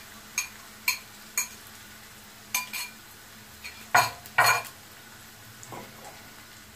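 A glass and a wooden spoon clinking against a frying pan as beaten egg is poured into fried onions and stirred. Three sharp clinks come about half a second apart, then a couple more, then two louder knocks about four seconds in.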